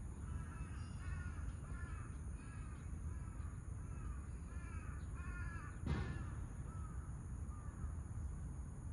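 A crow cawing over and over, a long run of short calls at about two a second that fades out near the end, over a steady low rumble. A single sharp knock sounds about six seconds in.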